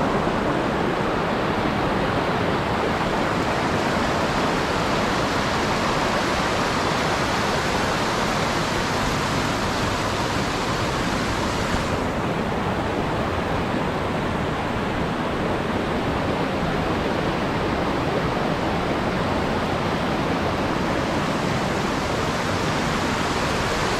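River water rushing steadily over rocks, a dense, even sound of flowing water with no break.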